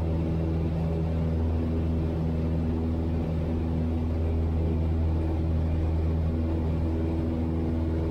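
Piper Tri-Pacer's engine and propeller droning steadily, heard from inside the cabin during the climb-out just after takeoff.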